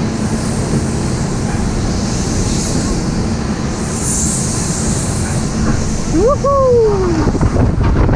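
Steady mechanical rumble of a Sunkid Heege Butterfly ride car running up and down its steel mast track. About six seconds in, a short pitched sound rises and then falls.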